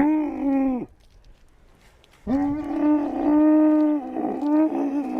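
Camel calling twice: a short call of under a second that drops in pitch at its end, then after a pause a longer call of about three seconds that wavers toward its end.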